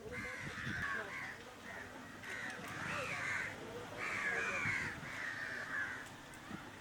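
Crows cawing over and over, harsh calls coming about once a second and sometimes running into one another.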